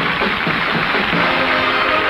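Television station ident music with many sustained notes.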